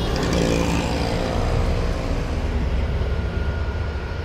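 Road traffic passing close by: an auto-rickshaw and a motor scooter drive past, their engine hum loudest in the first couple of seconds and then fading into a steady low traffic rumble.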